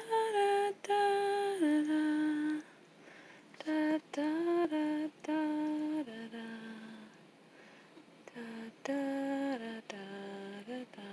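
A voice humming a slow lullaby tune: held notes that step down in pitch, sung in short phrases with brief pauses between them.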